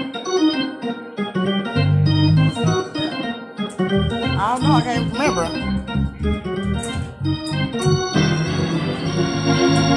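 Hammond organ played with both hands in full chords over strong low bass notes, a continuous run of music with some wavering, vibrato-like notes in the middle.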